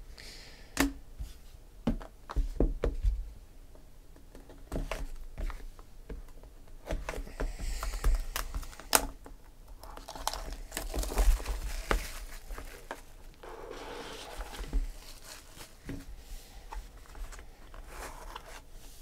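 Hands opening a trading-card box: several sharp clicks and knocks in the first three seconds, then tearing and crinkling of plastic wrap with more small knocks as the lid comes off.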